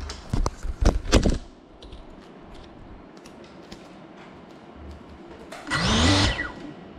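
Several quick knocks and clatter as a GEPRC CineLog 35 FPV drone is handled and set down. Near the end its brushless motors spin up briefly in a short rising whirr, then cut back.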